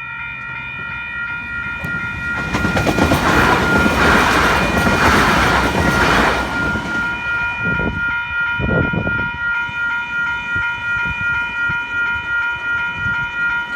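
Level-crossing electronic bells (Western Cullen Hayes E-bells) ringing steadily while a passenger train passes over the crossing. The train's rumble builds from about two and a half seconds in, is loudest around five seconds, and fades by about seven seconds, with the bells going on underneath.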